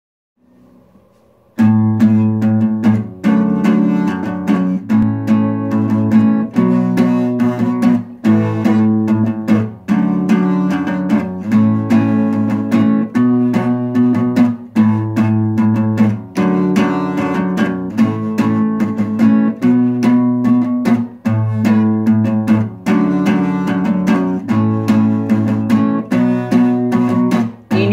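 Capoed cutaway acoustic guitar playing a chord-based song intro, chords plucked and strummed in a steady rhythm, starting about a second and a half in.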